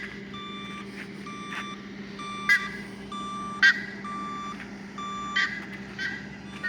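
Truck reversing alarm beeping about once a second over a steady low engine hum. A few sharp, louder chirps cut in over the beeps.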